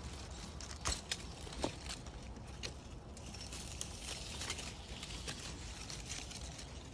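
Rustling with scattered light clicks and snaps as grapes are picked through the bird netting over a grapevine.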